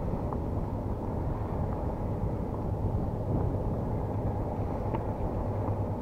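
Strong wind buffeting the microphone on an open boat: a steady low rumble with a faint steady hum beneath it and a few faint ticks.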